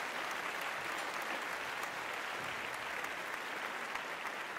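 Steady applause, many hands clapping at an even level.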